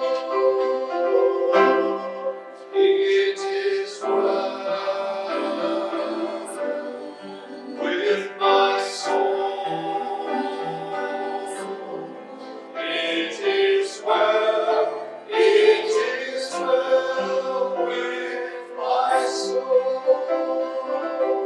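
A worship song: voices singing held, sustained notes over instrumental accompaniment.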